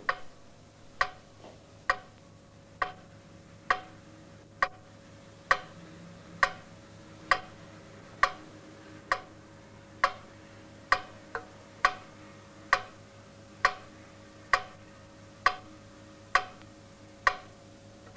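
Sharp clicks beating a slow, steady time, about one a second, with one extra click just past the middle, over a faint steady hum.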